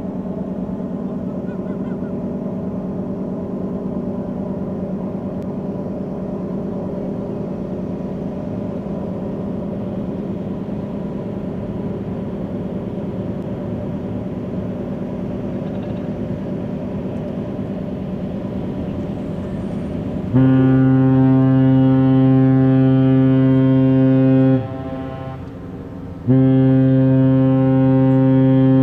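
Steady low drone of the steam freighter Wilfred Sykes' machinery as it passes close by. About twenty seconds in, its horn sounds a loud long blast of about four seconds. After a short break a second long blast begins near the end, part of a master salute.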